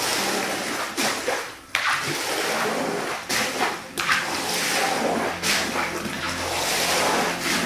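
Wet swishing strokes as water is swept and then squeegeed across a soaked rug, several strokes with short breaks between them.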